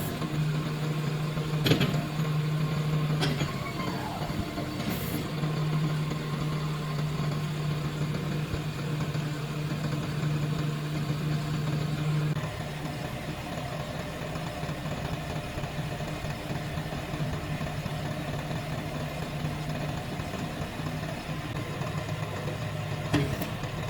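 Volfond 60 hp tractor's YTO four-cylinder diesel engine running steadily, with two sharp knocks in the first few seconds and one near the end. The engine note gets a little quieter about halfway through.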